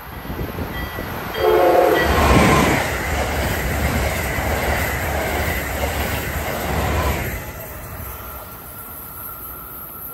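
Amtrak Acela Express high-speed trainset passing close by at speed: a short horn blast under a second long, then a loud rush of wheels and air for about six seconds that fades as it goes by.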